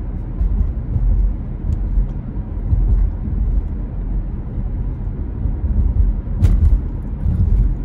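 Low, steady road and engine rumble heard inside the cabin of a moving car, with a brief knock about six and a half seconds in.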